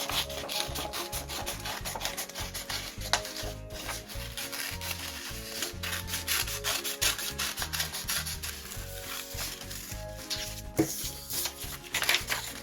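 Scissors cutting shapes out of construction paper: a dense, continuous run of snips and paper rubbing against the blades.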